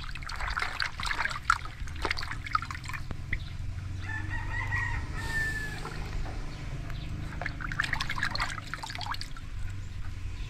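Water sloshing and splashing as fish pieces are lifted by hand out of a basin of water, in two spells about seven seconds apart. Between them, about four seconds in, one long high call sounds in the background for under two seconds.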